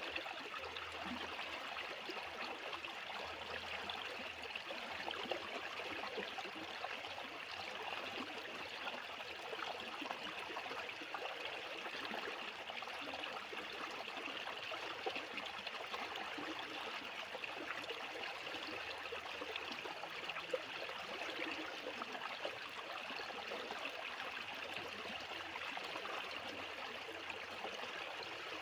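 Fast-flowing water rushing and splashing steadily, like a stream or small rapids.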